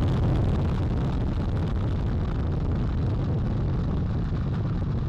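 Space Launch System rocket's four RS-25 core-stage engines and two solid rocket boosters at full thrust just after liftoff: a steady, deep rumble with a continuous crackle.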